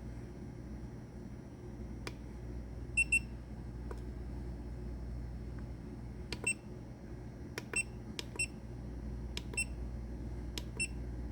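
Short electronic beeps from a lathe's controller keypad as its buttons are pressed: about nine beeps, a quick pair about three seconds in, then several more in the second half, with a few faint clicks, over a steady low hum.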